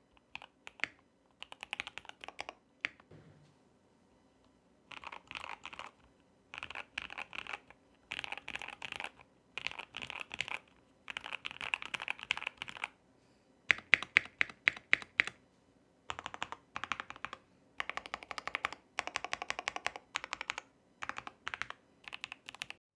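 Custom KBD75 v3.1 mechanical keyboard being typed on in bursts of rapid key clacks with short pauses between them. It has lubed and filmed C3 Tangerine linear switches, PBT keycaps and a polycarbonate plate. A few louder single strokes come about 14 seconds in.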